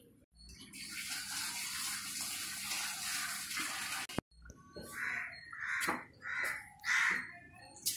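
A steady hiss for about the first four seconds that cuts off abruptly, followed by a bird calling harshly over and over, about five calls in three seconds.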